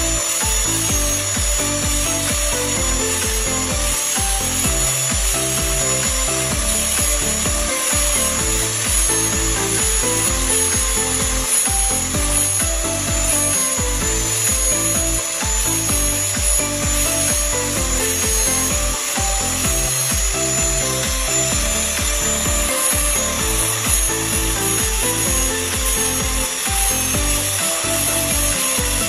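Electric grinder's disc grinding the teeth into a steel key blank, a steady high whine with a grinding hiss, mixed with background music.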